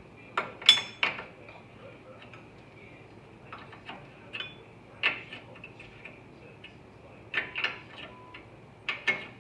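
Metal tools and parts being handled: scattered sharp metallic clinks and clicks, one ringing briefly about a second in, with more clusters of clinks in the last half.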